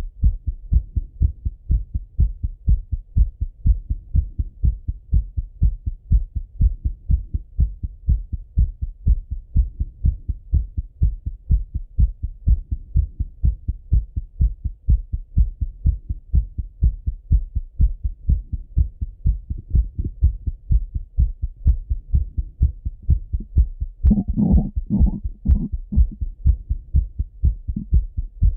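A man's heart beating fast and regularly, lub-dub thumps heard through a Littmann stethoscope, the rate still raised after a run. A few seconds before the end, a brief louder noise passes over the beats.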